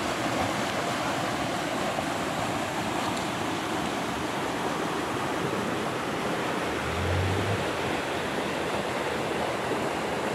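Rocky stream rushing over boulders in small rapids: a steady, even rush of water.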